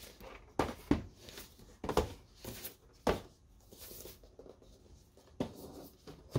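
Handling noises: a handful of sharp, irregular clacks with rustling and scraping in between, like small plastic parts or packaging being handled.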